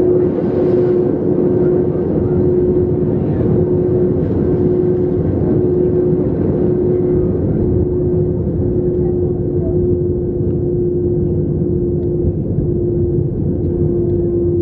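Airbus A321 cabin noise in flight: the jet engines and rushing airflow make a steady rumble with a constant droning tone over it, heard from inside the cabin.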